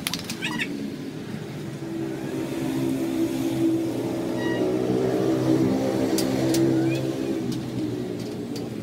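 A motor vehicle's engine running steadily, growing louder over several seconds and then easing off, with a few sharp clicks near the start and about two thirds of the way in.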